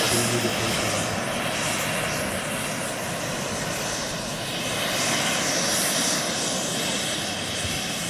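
Small gas-turbine engines of a large RC Concorde model jet running steadily at low power as it taxis on the grass: an even rushing noise.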